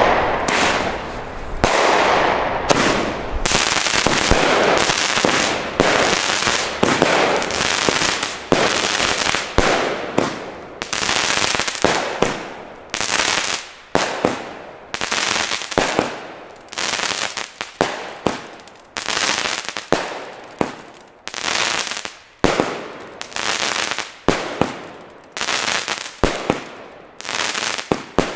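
Weco The New Beastmaster firework cake firing shot after shot. The first few seconds are a dense, continuous run of reports with hissing and crackle, then it settles into a steady series of separate launches and bursts, a little more than one a second.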